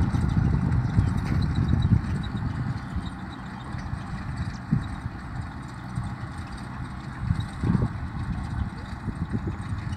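Distant Kubota M6040 tractor's four-cylinder diesel engine running steadily as it works the field, heard under wind rumbling on the microphone, heavier in the first couple of seconds and swelling briefly twice later.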